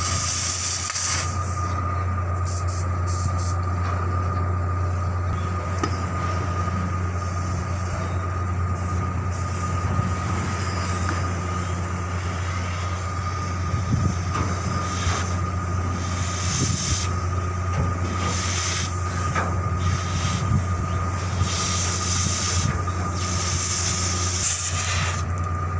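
Steady, loud low mechanical hum with a constant thin whine above it, and hiss that comes and goes.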